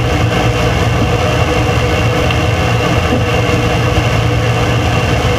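Vehicle engine idling steadily, its low hum the loudest thing heard.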